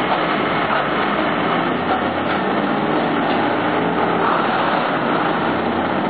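Wood chipper running steadily while chipping branches, a loud, constant mechanical noise of engine and cutting drum as chips are blown out of the discharge chute into the truck.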